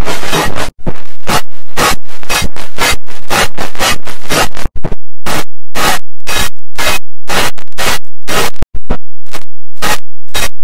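Very loud, harshly distorted and clipped digital noise, chopped into rapid repeating bursts that settle to about two a second after the middle.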